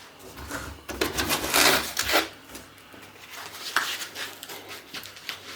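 Packing material in a printer's shipping box scraping and rubbing in irregular strokes as it is handled. The strokes are loudest in a cluster from about one to two seconds in, with a shorter bout near the four-second mark.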